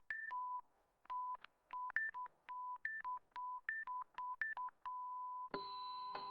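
Electronic beep tones at two alternating pitches, a lower and a higher one, in an irregular string of short and longer beeps that ends in one long held beep. About five and a half seconds in, a sustained synthesizer chord comes in.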